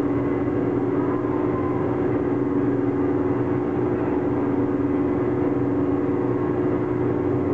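A steady drone of a few held low tones over a dense rumble, with no beat.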